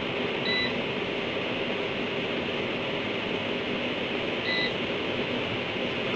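Steady hiss with two short high electronic beeps, about four seconds apart.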